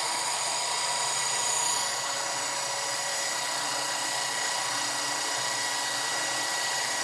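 Articulated-arm thread-tapping machine's motor running steadily, a whine with several high tones over a hiss, as it turns an insertion tool driving a self-tapping M10 thread insert into a bore.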